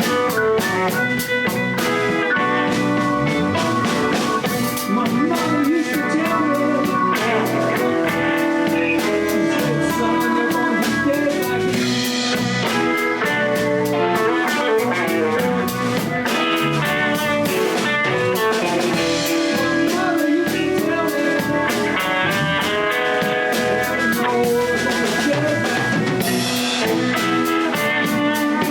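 Blues band playing a song live, with guitar lines over a drum kit keeping a steady beat.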